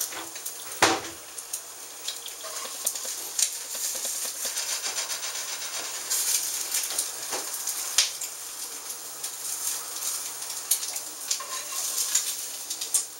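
Eggs frying in hot grease in a pan, sizzling and crackling steadily with frequent pops, the pan hot enough to burn them. A few sharper knocks of a utensil against the pan come through, one about a second in.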